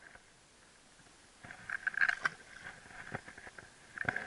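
Near silence for the first second and a half, then faint scraping and rustling in a plastic fishing kayak, with two sharp knocks, one about three seconds in and one near the end.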